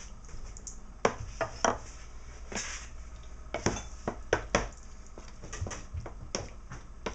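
Clinks and knocks of kitchenware as sugar is measured out with a measuring cup and spoon: about ten sharp clacks at uneven intervals, with a brief scrape among them.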